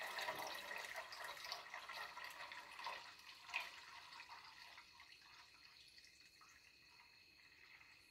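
Goat milk pouring in a slow, thin stream from a glass jar into a metal pot of milk: a faint trickle and splash that fades away over the first half, with a small splash about three and a half seconds in.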